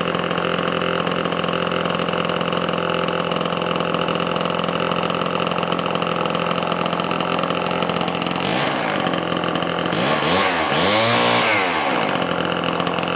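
Homelite 1130G 100cc gear-drive two-stroke chainsaw running steadily, then revved up and down several times from about eight seconds in.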